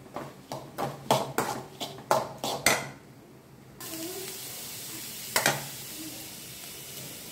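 Steel slotted spoon scraping and clacking against an aluminium kadai as chopped onions are stirred, about three strikes a second. From about four seconds in the onions sizzle steadily in the oil, with a sharp double metal clink a little past five seconds.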